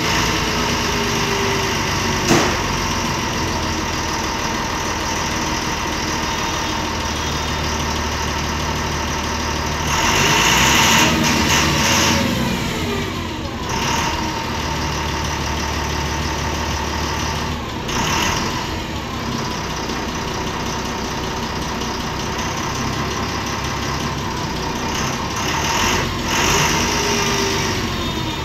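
MAN Lion's Classic city bus's MAN D0826 LOH six-cylinder diesel engine idling, heard from inside the cabin, with a sharp click about two seconds in and a louder stretch lasting a couple of seconds around ten seconds in.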